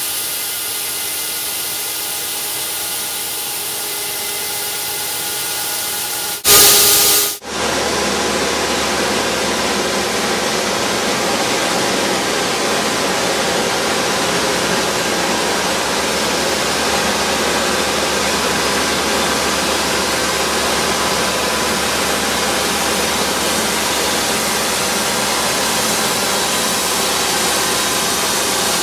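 TracFOG PTO-driven fogger running steadily, a dense hiss of spraying fog over the tractor's engine. About six and a half seconds in, a brief, very loud rush of noise lasts about a second, after which the engine's low rumble is stronger.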